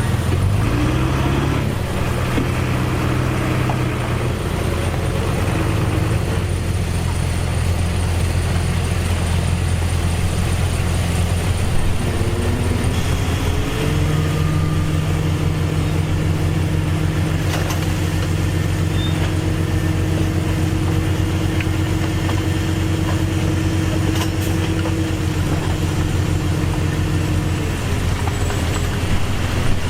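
Heavy-equipment diesel engine running steadily. Its pitch rises about halfway through as it revs up, holds there, and settles back down shortly before the end.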